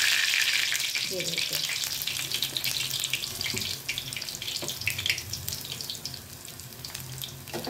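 Medu vadas deep-frying in hot oil in a kadhai: a sizzling hiss full of small crackling pops. The raw batter has just gone in, and the sizzle is loud at first and dies down gradually.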